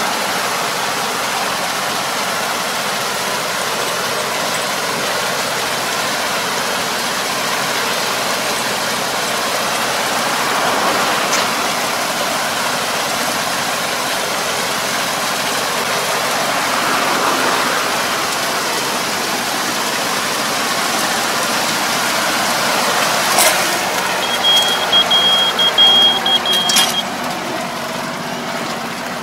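Tractor engine running as its rear-mounted drive harrow churns through a flooded rice paddy, puddling the mud and water: a steady wash of engine and water noise. Near the end come a few sharp knocks and a short, steady high beep.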